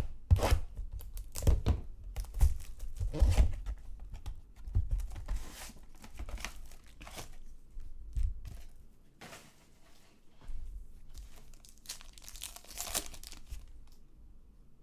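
Trading card box and pack wrappers being torn open and crumpled by hand: a string of irregular tearing and crinkling noises that dies away near the end.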